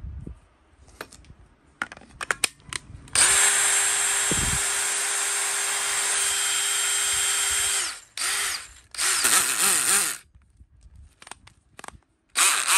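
DeWalt DCD708 20V brushless compact drill/driver spinning with no load. It runs once steadily for about five seconds, then twice briefly with the speed rising and falling on the trigger, and starts again near the end. A few clicks come before and between the runs.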